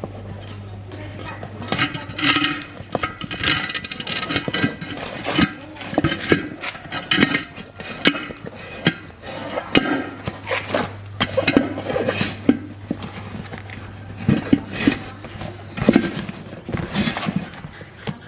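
Irregular metallic clinks and knocks of hand tools and metal parts being handled, over a steady low hum.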